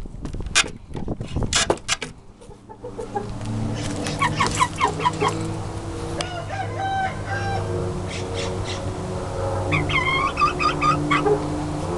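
Chickens clucking and calling: a run of short clucks about four seconds in, a longer pitched call around six seconds, and another string of clucks near ten seconds. A few knocks sound in the first two seconds.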